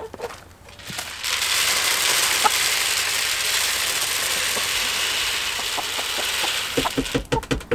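Grain chicken feed pouring from a plastic scoop into a feeder: a steady rustling hiss lasting about six seconds. A quick run of knocks follows near the end.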